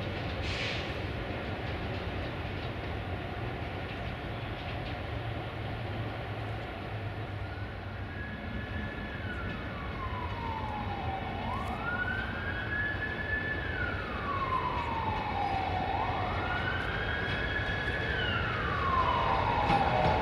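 Emergency vehicle siren wailing. It starts about eight seconds in and rises and falls slowly in pitch, one cycle every four to five seconds, growing louder near the end over a steady low hum.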